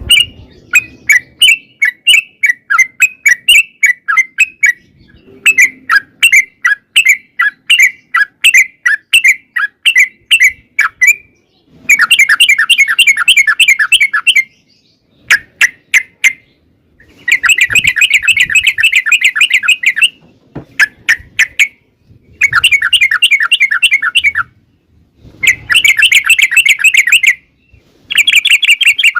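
Yellow-vented bulbul (trucukan) singing its long, rapid chattering song: strings of quick, bubbly notes, in phrases of about two to three seconds with short pauses between.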